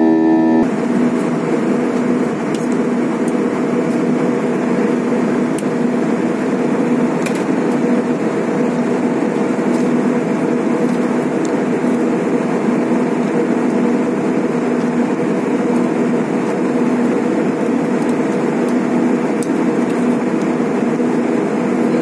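Airliner cabin noise at cruising altitude: a steady, even roar of engine and airflow with a faint low hum. A short stretch of organ-like music cuts off about half a second in.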